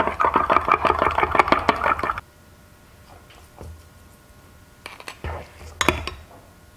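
A metal spoon stirs fast in a glass measuring cup of liquid soft-plastic bait mix, clinking against the glass for about two seconds. Then come a few single clinks and taps.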